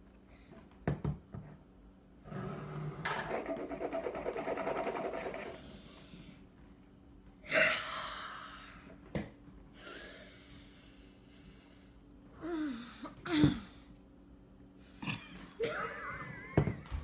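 A woman making loud, breathy non-speech sounds in several separate bursts: long sniffs and gasps, with a few short laughs. The longest burst starts about two seconds in and lasts about three seconds.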